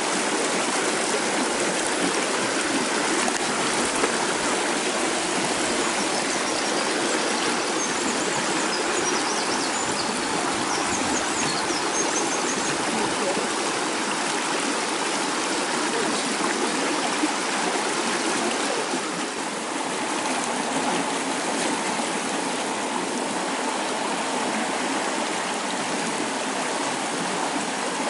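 Fast-flowing mountain stream rushing over rocks: a steady, even rush of water.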